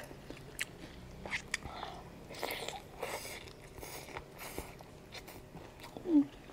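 Close-up eating sounds of a person chewing tender stewed chicken drumstick: soft wet chewing and mouth smacks with scattered small clicks. Near the end comes a short low vocal sound.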